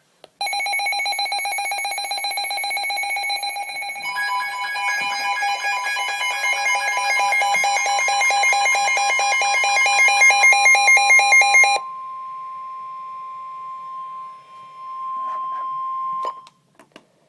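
Weather alert radio alarms beeping in a rapid pulsing pattern, with a second alarm and the steady NOAA Weather Radio 1050 Hz warning tone joining about four seconds in, announcing a winter storm warning. The beeping stops about twelve seconds in, leaving the steady tone alone until it cuts off near the end.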